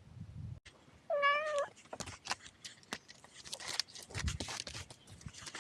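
A domestic cat meows once, about a second in, in one short wavering call. A run of light clicks and rustles follows.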